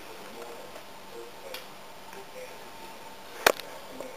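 Quiet room tone broken by a faint click about a second and a half in and one sharp click about three and a half seconds in.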